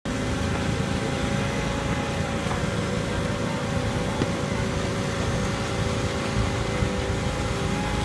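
Concrete pump truck and concrete mixer trucks running steadily: a continuous engine drone with several steady whining tones over it.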